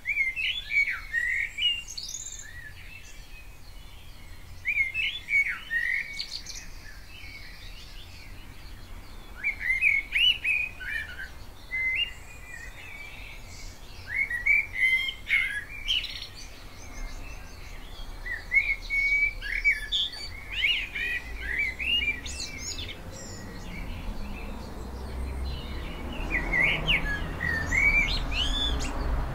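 Common blackbird singing: short warbled phrases every few seconds, several ending in higher twittering notes. A low rumble builds up in the background near the end.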